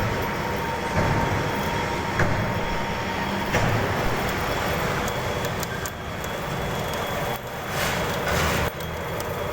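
Machinery running steadily, a continuous rumble and hiss with a faint steady whine, broken by a few short clicks and knocks.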